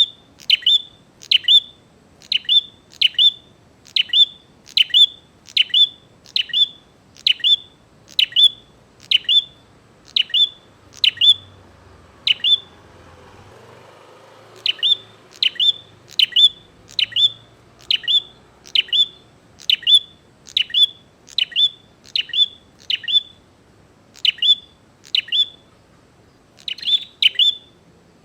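Prinia (prenjak) giving short, sharp chirping calls in a fast, even series of about one and a half calls a second, with a pause of about two seconds near the middle. This is the persistent, aggressive calling that Indonesian bird keepers use as a challenge to provoke rival birds.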